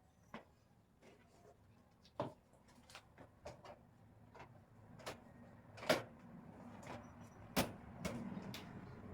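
Irregular clicks and knocks of shoe rack parts being handled and fitted together, two of them louder in the second half, over a faint rustling that grows toward the end.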